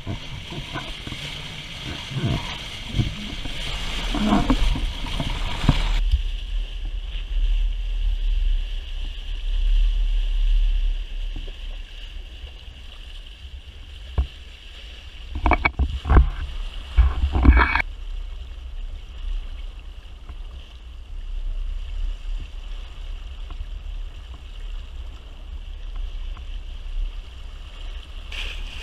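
Water rushing and splashing along the hull of a Dufour T7 sailboat under sail, with wind rumbling on the camera's microphone. The bow-wave splashing is busiest for the first several seconds, and a few sharp knocks or splashes come just past halfway.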